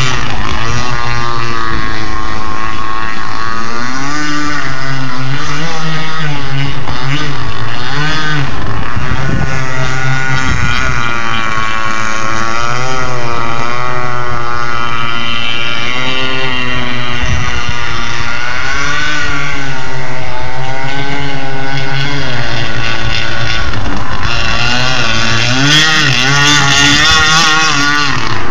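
Radio-controlled boat's motor running flat out across the water, its pitch rising and falling continuously as the throttle is worked.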